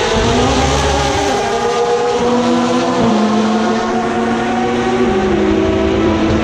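Le Mans prototype and GT race cars braking into a tight corner. Their engine pitch drops in several steps as they change down, holds low, then climbs again a little after five seconds as they pull away.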